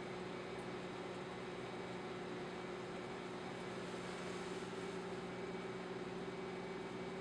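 Steady mechanical hum with a constant low tone over an even hiss, typical of a reef aquarium's water pumps running.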